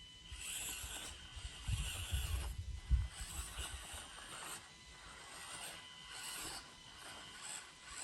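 Axial SCX24 micro RC crawler's small electric motor and gearbox whirring in short stop-start bursts of throttle, with a few low thumps about two to three seconds in.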